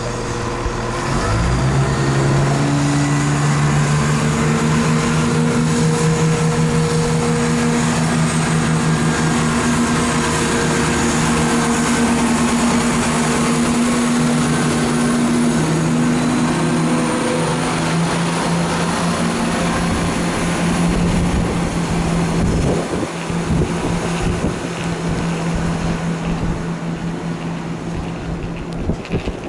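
CrossCountry Class 170 Turbostar diesel multiple unit running close past, its underfloor diesel engines droning at a steady pitch with a few even tones. In the last several seconds the engine note gives way to rougher wheel-and-rail noise with irregular knocks.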